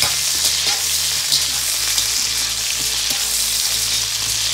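Pieces of pointed gourd (potol) sizzling steadily as they shallow-fry in fish-frying oil in a wok, while a slotted metal spatula stirs them.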